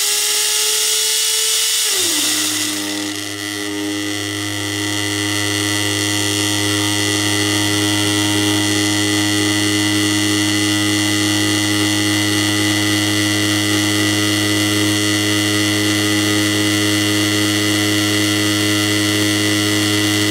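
Smart Dentin Grinder regrinding extracted teeth: a high motor whine for about the first two seconds, the grinding stage. It then switches to a steady low buzz, the machine vibrating to sort the dentin particles by size, which holds unchanged to the end.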